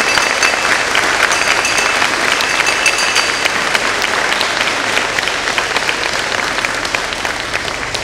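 Audience applauding, with the ringing of the ceremonial school bell dying away under the clapping in the first few seconds; the applause thins out slightly near the end.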